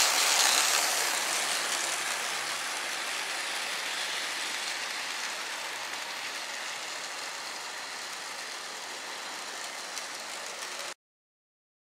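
HO-scale model trains running on track, a steady noise loudest about a second in as the locomotive passes close, then easing off and cutting off suddenly near the end.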